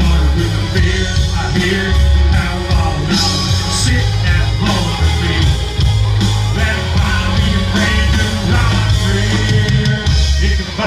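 A live country band playing loudly through a PA, with electric guitars, bass and a drum kit.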